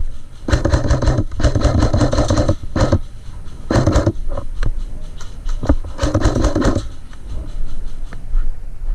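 Airsoft electric guns firing full-auto bursts, a fast rattle of shots: one long burst near the start, then several shorter bursts and single shots.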